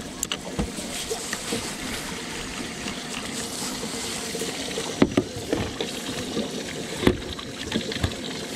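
Water lapping and trickling against the hull of a small drifting boat, with a few sharp knocks, the loudest about five and seven seconds in.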